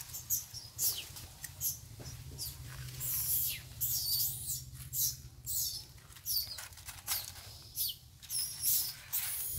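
Short high rustling scrapes, one or two a second, over a steady low rumble.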